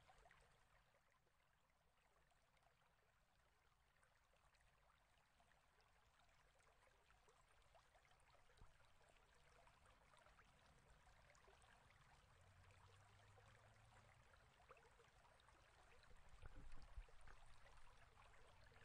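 Near silence: a faint steady hiss with scattered tiny ticks.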